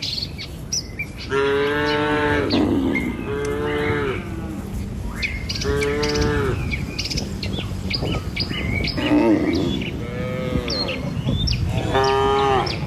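Cattle in a herd mooing, about six separate long calls one after another, with small birds chirping throughout.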